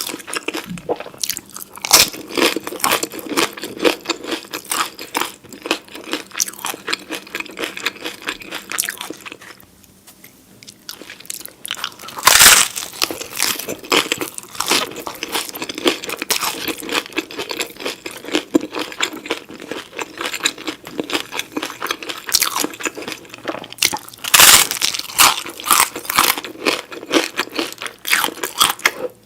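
A person chewing crunchy food close to the microphone: dense, continuous crunching with a few louder sharp bites, one about two seconds in, one near the middle and one near the end, and a brief quieter pause a little before the middle.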